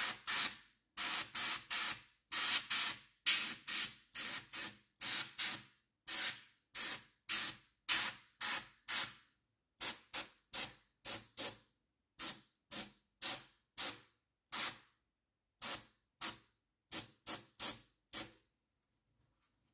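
Airbrush spraying paint in short hissing bursts, roughly two a second with a few brief pauses, stopping near the end.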